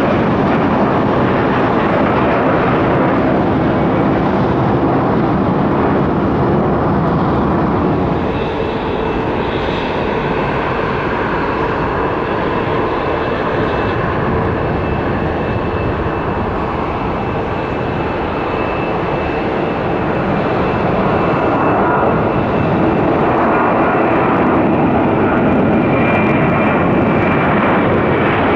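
Jet airliner engines at takeoff power: a steady loud roar, first from a twin-engine Embraer regional jet climbing out. Then an Airbus A321-231's IAE V2500 turbofans run with a steady high whine and grow louder about three quarters of the way through as the aircraft takes off.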